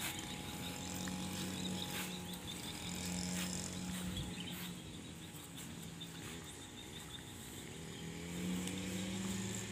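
A motor engine running steadily, its drone fading somewhat midway and growing louder again near the end.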